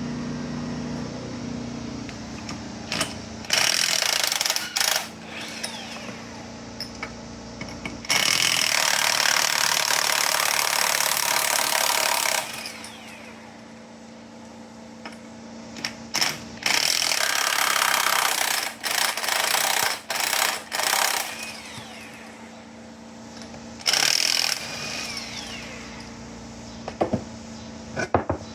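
A power tool running in four loud bursts of one to five seconds, with a steady low hum between them.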